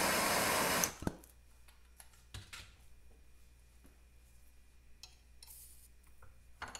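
Handheld gas torch hissing steadily as its flame plays on a short steel pin, cutting off abruptly just under a second in. After it, a few faint clicks and knocks of tools being handled on the bench.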